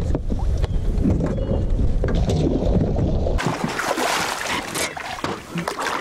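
Water splashing as a hooked musky thrashes at the surface beside the boat, under a heavy low rumble of wind on the microphone. About three and a half seconds in, the rumble drops away abruptly, leaving a thinner hiss with sharp splashes.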